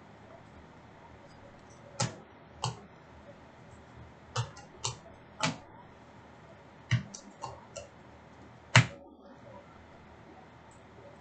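Trading cards and packs being handled on a table: about ten sharp clicks and snaps at irregular spacing, the loudest near the end.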